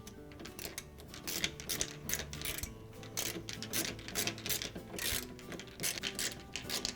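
A 5/16 nut driver driving the screw that fastens a dishwasher's door balance link mechanism to its side panel: a run of irregular clicks and scrapes.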